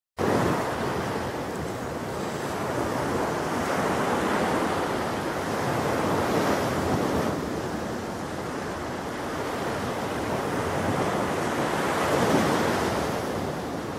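Ocean surf washing onto a sandy beach: a steady rush of breaking waves that slowly swells and eases.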